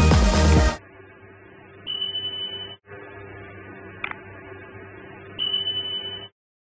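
Music ends under a second in, giving way to the sound effects of a subscribe-button animation: a faint steady hum with two high, steady beeps, one about two seconds in and one near the end, and a single mouse click between them.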